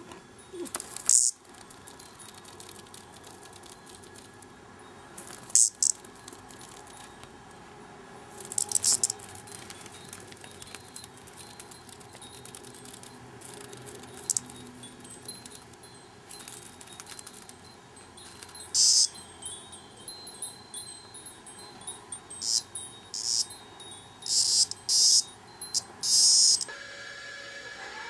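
A cicada giving short, harsh, high-pitched buzzes, the distress call of a cicada being pawed by a cat. There are a few single buzzes early on, then several in quick succession near the end.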